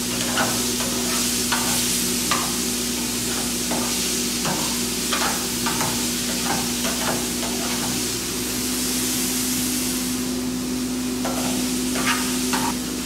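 Fish pieces and chopped vegetables sizzling in oil in a frying pan, with the irregular clicks and scrapes of a utensil stirring against the pan. The stirring pauses briefly a little past the middle, while the sizzle goes on.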